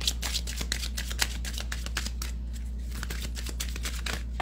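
A deck of divination cards being shuffled by hand: a quick, dense run of papery card clicks and slaps, with a steady low hum underneath.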